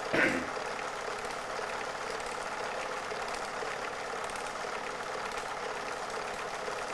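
Super 8 film projector running with a steady mechanical whirr, and a brief louder sound about a quarter second in.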